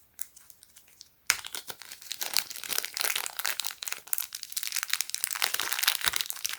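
Small plastic zip-lock bag crinkling and rustling as it is handled and opened. A few faint clicks come first, then a sudden dense crinkling starts just over a second in and continues.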